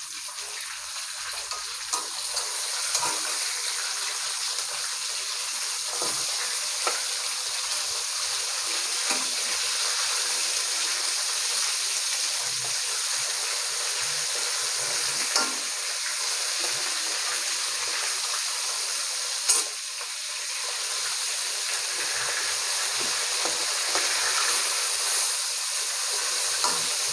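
Rohu fish pieces sizzling steadily as they fry in hot oil in a metal kadai. A few light clicks of the metal spatula against the pan come as the pieces are turned.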